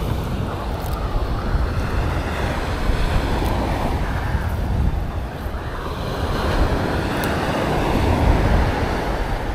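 Surf washing onto the beach, rising and falling with the waves and loudest about eight seconds in, with wind buffeting the microphone.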